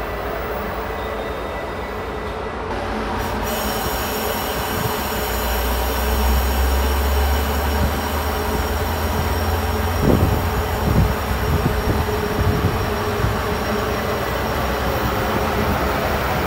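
Metra bilevel commuter coaches rolling past close by, wheels rumbling on the rails. A high, steady wheel squeal comes in a few seconds in and keeps on, and a few low thumps sound about ten seconds in.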